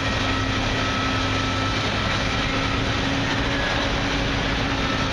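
Steady mechanical hum with a low drone and a faint held tone, unchanging in level and pitch throughout.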